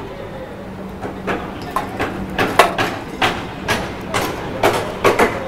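Irregular clicks and taps of a screwdriver and screws against the machine's metal panel as it is fitted, over a steady low hum.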